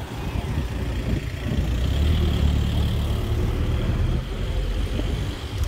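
A motor vehicle engine running, a low rumble that grows louder about two seconds in and eases after about four seconds.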